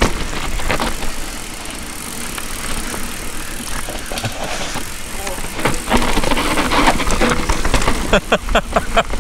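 Mountain bike descending a rough downhill trail: tyres on dirt and the bike rattling over bumps, with a steady wind rumble on a chin-mounted camera's microphone. The rattling gets denser and louder about six seconds in.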